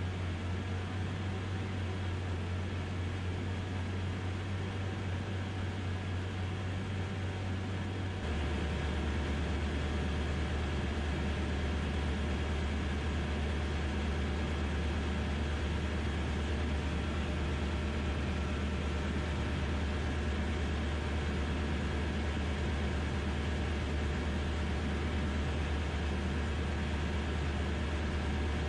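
DynAero MCR01 ultralight's engine and propeller droning steadily in cruise, heard inside the cockpit with a hiss of airflow. About eight seconds in, the drone drops a little in pitch and grows slightly louder.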